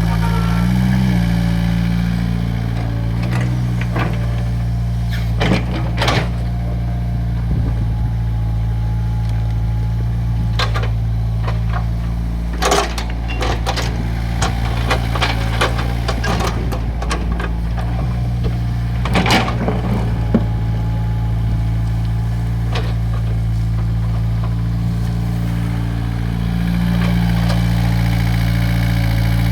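Excavator engine running steadily while digging, with scattered knocks and clanks, the sharpest about 6, 13 and 19 seconds in.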